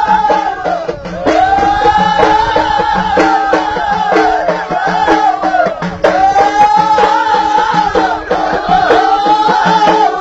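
Ahidous music: voices singing long, arching phrases over again and again, over a steady beat of bendir frame drums.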